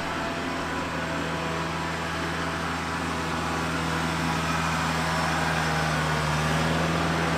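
Kubota L-series compact tractor's diesel engine running steadily as the tractor drives a tight turn on grass in four-wheel drive, getting a little louder as it comes closer.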